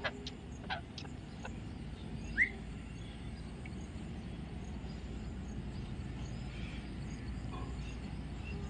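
A caged Alexandrine parakeet gives a single short rising chirp about two and a half seconds in. A few light clicks come in the first second and a half, over steady low background noise.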